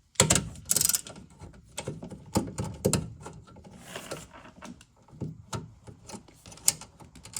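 Irregular clicks, scrapes and rattles of hand work on a dishwasher's control board mounting: plastic and metal parts handled and fastened, with a few sharper clicks.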